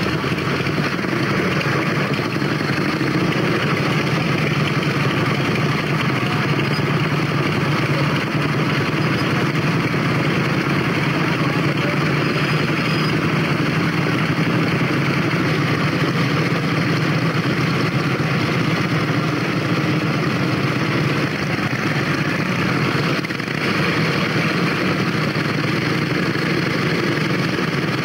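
Several vintage motorcycle engines running steadily at low revs, with the sound of the group blending into one continuous drone.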